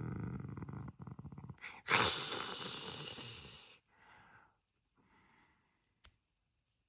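A raspy, rattling growl, then a loud breathy hissing roar about two seconds in that fades away over the next two seconds, like a dinosaur vocalisation.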